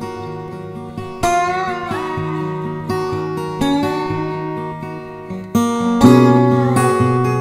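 Acoustic guitar music: plucked notes and strummed chords that ring out and fade, a few notes sliding up or down in pitch, with fresh strums about a second in and again near the end.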